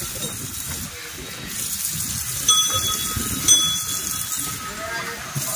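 Water running from a wall tap into a temple elephant's trunk as it drinks, a steady hiss of water. The brass bell hanging from the elephant's harness rings twice, about a second apart, midway through.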